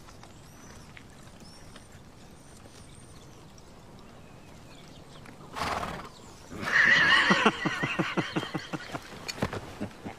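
A horse whinnies for about a second and a half, a loud, wavering neigh that breaks into rapid pulses as it trails off, a moment after a short breathy blast. Scattered hoof clops follow near the end.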